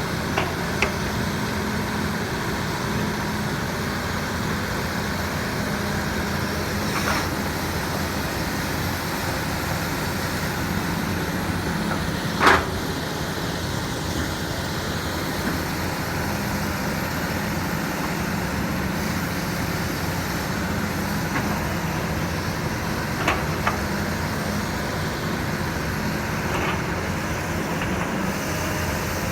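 Hydraulic excavator's diesel engine running steadily while working, with a few short clicks and one sharp knock a little before halfway through.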